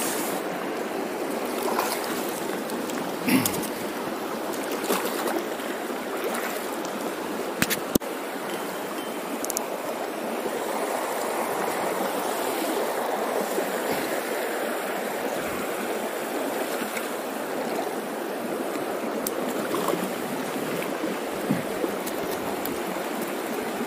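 Shallow river current running over a cobble riffle around wading legs: a steady rush of water, with a few faint clicks.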